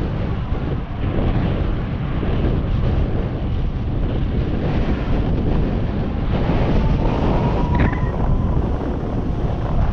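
Wind buffeting the microphone of a moving e-bike, a loud steady rumble, with a faint thin tone briefly about seven seconds in.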